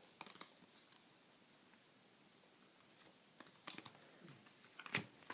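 Mostly near silence, then soft handling noises of trading cards and their packs: a few faint ticks from about three seconds in and one sharper click about five seconds in.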